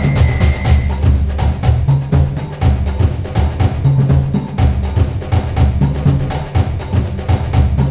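Background music with a steady, fast percussion beat over a bass line.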